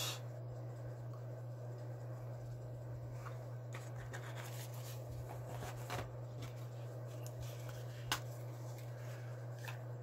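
Hands handling boxed Zippo lighters and a wooden cigar box: light rubbing and shuffling with a few soft clicks and taps, over a steady low hum.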